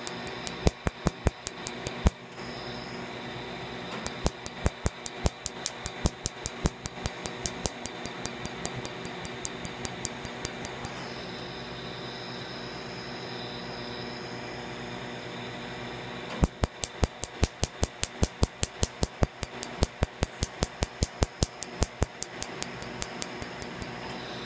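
Quanta Q-switched tattoo-removal laser firing in runs of sharp, regular snapping clicks, several a second, as its pulses strike the tattoo ink. There are three runs: one near the start, a long one from about 4 to 11 seconds in and another from about 16 to 22 seconds in, over a steady hum.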